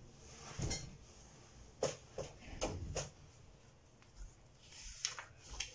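A picture book being handled: a few faint taps and knocks on the book, then a soft paper rustle near the end as a hand takes the page to turn it.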